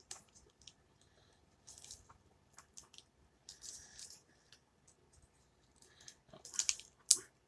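Packaging of a blind-box vinyl figure being handled and opened: intermittent crinkling and rustling of plastic wrap and cardboard, with a louder burst and a sharp snap near the end.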